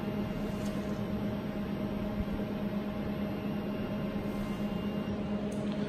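Stepper-motor-driven Dobot conveyor belt running: a steady low hum with a fainter higher tone over a light hiss.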